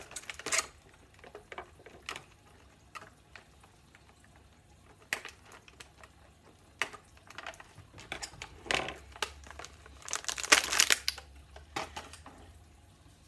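Toy packaging being handled and crinkled in irregular bursts of rustling with small clicks. The loudest crinkling comes about ten seconds in.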